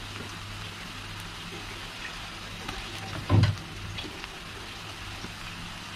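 Onions and chillies sizzling steadily in hot oil in a karahi. A short dull thump about three seconds in, as a dollop of garlic paste goes into the pan.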